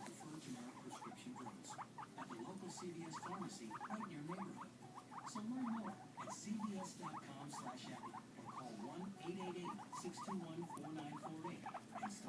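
Pet guinea pigs squeaking in many short calls repeated in quick succession, several a second.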